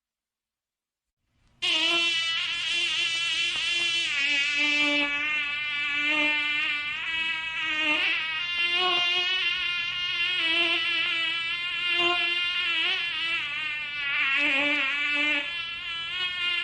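Mosquito whining in flight, a thin buzzing drone that starts abruptly after about a second and a half of silence. Its pitch wavers up and down as it flies.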